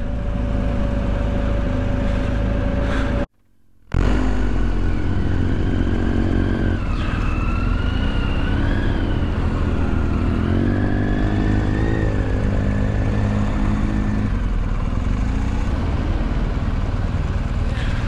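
Motorcycle engine running under way, a steady rumble with its pitch rising and falling as the revs change. The sound cuts out suddenly for about half a second a few seconds in, then comes straight back.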